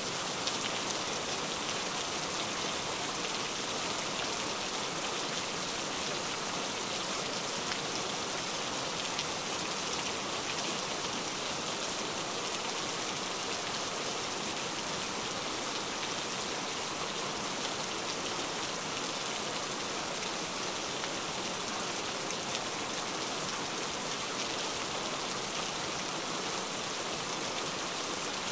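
Steady rain falling: an even, unbroken hiss of many drops, more hiss than rumble.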